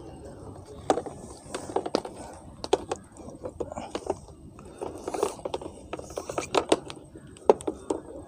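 Irregular clicks, knocks and scrapes of a pressure washer's rubber high-pressure hose and its metal end fitting being handled and uncoiled.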